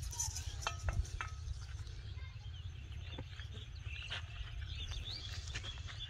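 Small birds chirping over a steady low rumble, with a few sharp clicks and rustles in the first second or so as hands work a fishing hook out of a landed fish on a jute sack.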